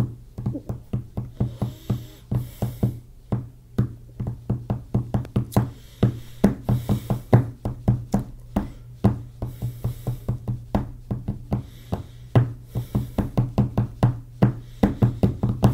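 Hands drumming a fast, uneven beat on a desktop, several knocks a second, like a drum-machine rhythm.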